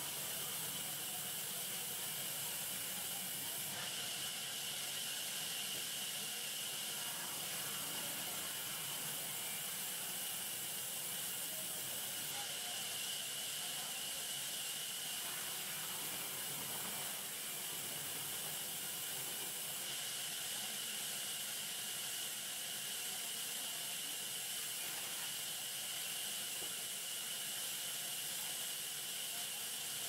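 Sawmill band saw running steadily: a constant hiss with a high, steady whine.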